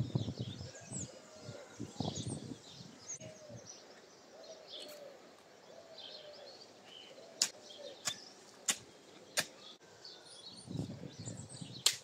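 Small birds chirping and calling, with a hoe blade chopping into the soil. The hoe makes a run of sharp clicks about two-thirds of a second apart near the middle, and dull thuds near the start and end.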